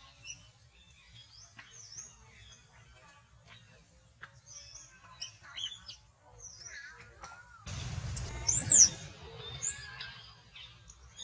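Baby long-tailed macaque crying in short high squeaks and chirps, breaking into a louder shrill rising-and-falling scream about eight or nine seconds in.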